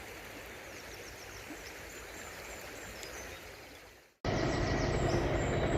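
Steady rush of a river with faint birdsong, fading out about four seconds in. After a sudden cut, louder steady outdoor noise follows, with birds chirping.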